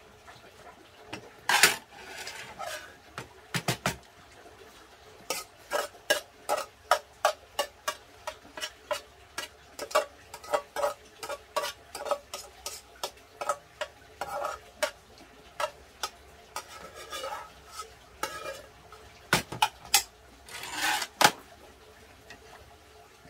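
A spoon scraping and clinking against a pot as the last of a mixed rice meal is scooped up: a run of quick strokes about two a second, with a few louder clatters near the start and near the end.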